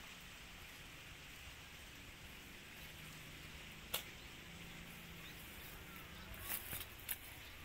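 Steady, faint outdoor hiss with one sharp snap about four seconds in and a few quick knocks or rustles near the end.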